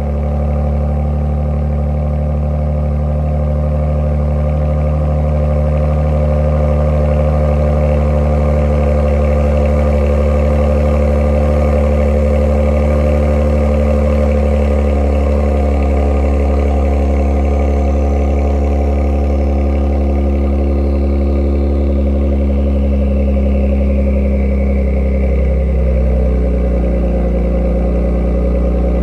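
Genesis G70's twin-turbo 3.3-litre V6 at cold-start fast idle through an Ark Performance cat-back exhaust: a steady, deep exhaust drone from the tailpipes. The idle note shifts slightly near the end.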